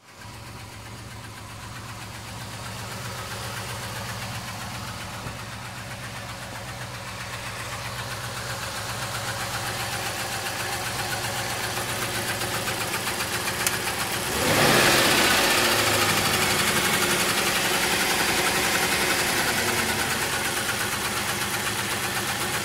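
1999 Lincoln Town Car's 4.6-litre V8 idling roughly with a misfire, which the trouble codes put on cylinders 4 through 8, alongside a lean condition on both banks. It gets suddenly louder about two-thirds of the way in.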